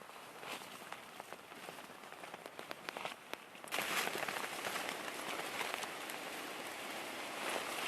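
Storm rain pattering on a surface close to the microphone, with many separate drop hits. It suddenly gets heavier and louder about four seconds in.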